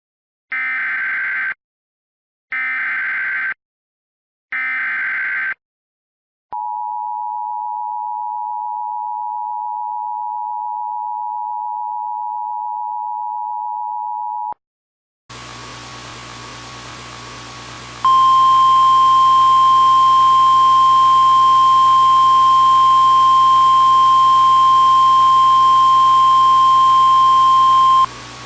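Emergency Alert System tones: three short bursts of SAME header data, each about a second long, then the two-tone EAS attention signal held for about eight seconds. After a short gap a hum with static comes in, and a few seconds later the louder single steady NOAA Weather Radio warning alarm tone sounds for about ten seconds.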